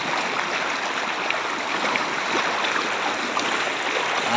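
Floodwater flowing steadily over a submerged road, a continuous rushing with faint small splashes.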